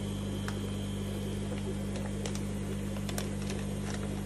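Steady low electrical hum of fish-room equipment, with a few faint clicks over it.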